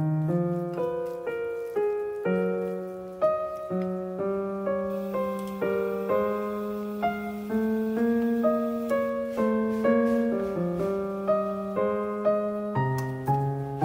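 Background piano music: a gentle melody of single notes over low held notes, played at an even pace.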